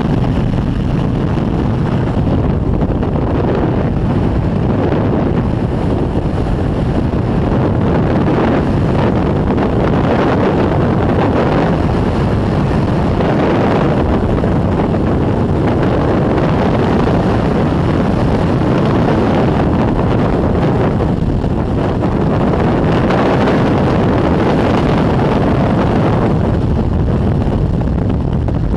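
Loud, steady rush of skydiving freefall wind buffeting the microphone.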